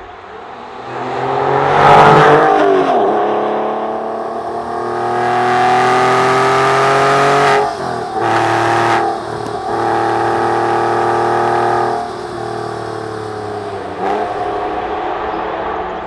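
Porsche 996 Carrera 4S flat-six engine, loudest as it passes about two seconds in with its pitch falling. It then accelerates with a rising note until about seven and a half seconds in, cuts off sharply for a gear change, and runs at a steadier pitch with a drop in level about twelve seconds in.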